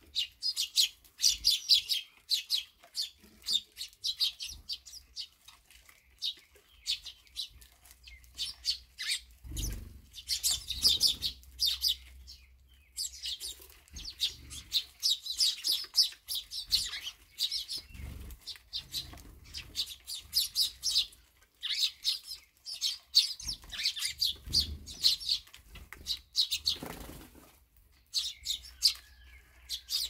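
A flock of Eurasian tree sparrows chirping busily at a seed feeder, in dense bursts of rapid chirps with brief lulls. Wings flutter now and then as birds land and take off.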